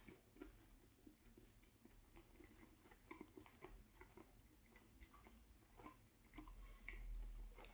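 Faint close-up chewing of a mouthful of cheesy chicken sub sandwich, with small, irregular wet mouth clicks and smacks.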